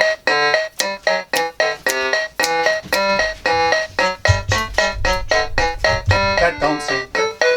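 Electronic keyboard playing a quick melody of short, separate notes, about four a second. A low rumble sits under the notes in the middle stretch.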